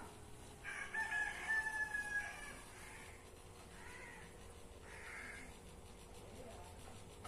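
A rooster crowing: one long call beginning about a second in and lasting about a second and a half, followed by several shorter, fainter calls.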